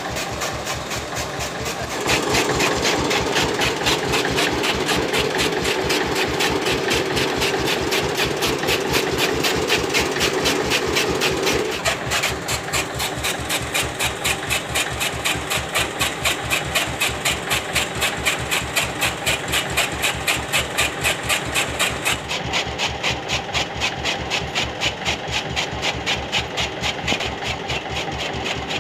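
A tractor engine running steadily while its rear wheel drives a flat belt to a chaff cutter, whose flywheel blades chop green fodder in an even, repeating beat. The sound grows louder about two seconds in.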